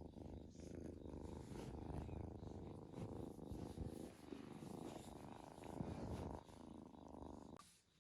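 A cat purring, a steady low rumble that stops shortly before the end.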